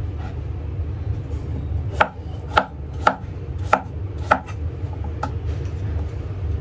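Cleaver chopping food, a sharp knock about every half second, the strongest strokes from about two seconds in, over a steady low hum.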